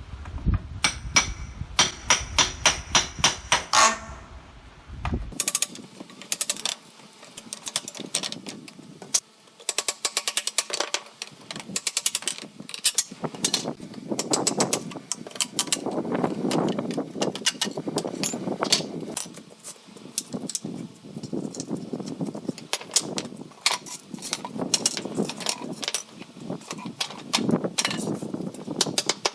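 Woodworking shop sounds: a fast run of sharp knocks and taps, like hammering on wood, then irregular knocks and the clatter of tools being handled.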